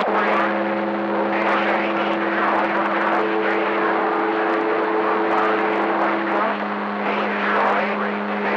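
CB radio receiver audio on the 11-metre band during skip: several carriers beating together into steady droning heterodyne tones, one dropping out and another coming in partway through, over static and garbled, unintelligible voices.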